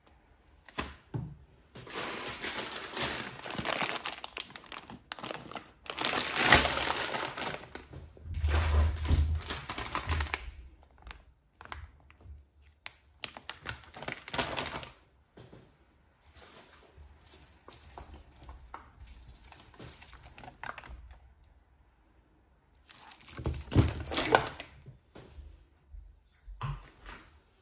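Plastic food packaging crinkling and rustling in several stretches as grocery items are picked up, handled and set down, with a few light knocks on the hob.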